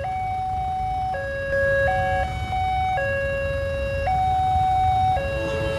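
Railway level-crossing warning siren sounding its two-tone electronic alarm, stepping back and forth between a higher and a lower pitch about once a second, while the barriers are down for an approaching train.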